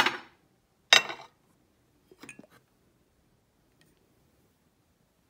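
Ceramic teapot and its lid clinking as they are handled: two sharp clinks about a second apart, then a few lighter knocks as the pot is tipped up.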